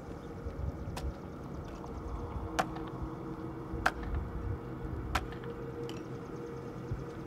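Steady low rumble of outdoor background noise, broken by a sharp click about every second and a half.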